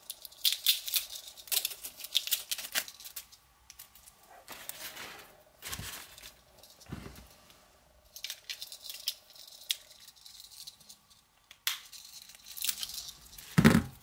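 Paper towel crinkling and crumpling in hands in several spells as it is unwrapped from the knife, with a few soft knocks of small items set down on the mat and one heavier thump near the end.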